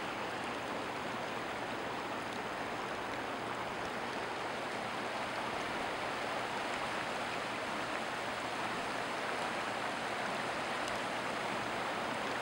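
Muddy flash-flood runoff rushing over sandy ground and along a concrete street curb, a steady even rush of flowing water.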